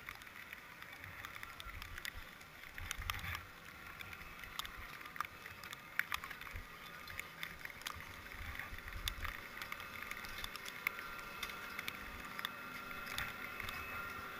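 Ski gear in a chairlift line: skis scraping and clacking on packed snow and poles clicking, a scatter of sharp knocks over bursts of low rumble on the camera microphone.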